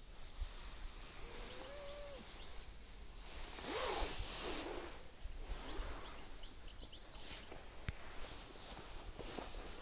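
Quiet outdoor garden background noise, broken about four seconds in by a brief loud rustling scrape as the camera is moved. A faint, short rising-and-falling call comes about a second and a half in, and faint chirps are scattered through.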